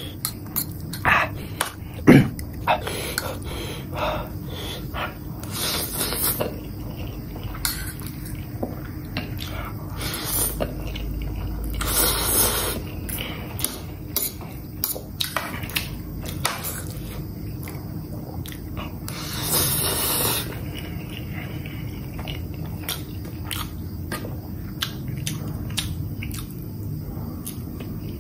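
Fork and knife clicking and scraping on a plate while a person eats noodles and chews, with a few noisy bursts of about a second each.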